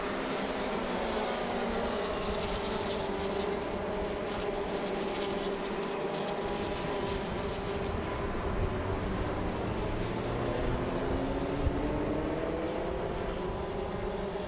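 Several Formula Renault 2.0 single-seaters' 2.0-litre four-cylinder engines running hard as a pack of race cars passes. Their overlapping engine notes rise and fall in pitch.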